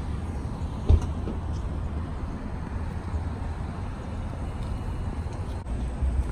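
Outdoor parking-lot background noise: a steady low rumble like distant traffic, with a single sharp knock about a second in and a brief dropout near the end.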